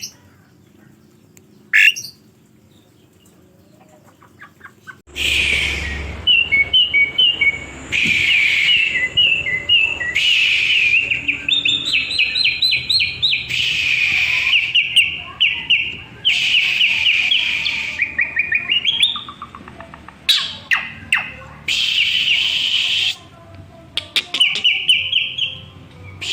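Asian pied starling song: a brief chirp, then from about five seconds in a long, rapid run of chattering, whistled and trilled notes with short breaks.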